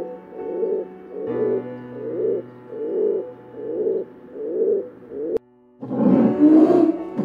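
Scheepmaker's crowned pigeon giving a steady series of low, deep coos, a little under two a second. After a brief break near the end, a loud rough, noisy sound takes over.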